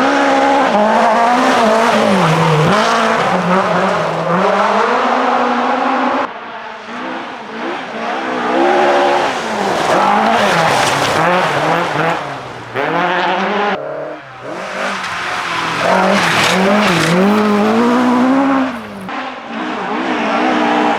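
Classic rally cars at full throttle, engines revving hard and falling back through gear changes and lifts. The sound changes abruptly about six, fourteen and nineteen seconds in, as one pass gives way to the next.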